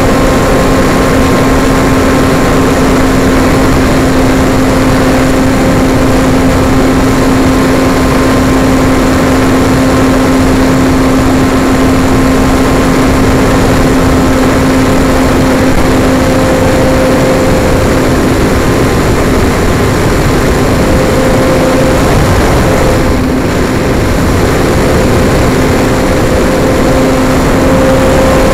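RC airplane's electric motor and propeller running at steady speed, a constant hum under loud wind rush on the onboard microphone. The hum dips briefly about two-thirds of the way through.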